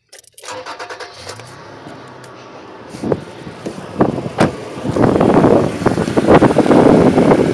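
Toyota Tacoma pickup engine starting and running. The sound grows much louder and rougher in the second half.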